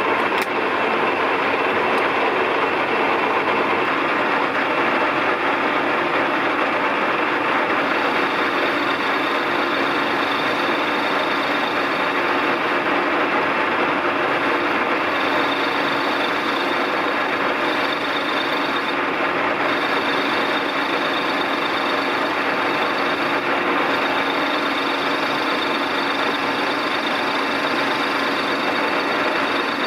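Colchester Triumph 2000 metalworking lathe running steadily under power, a continuous mechanical hum with a thin high whine that comes in about eight seconds in and drops out briefly a couple of times.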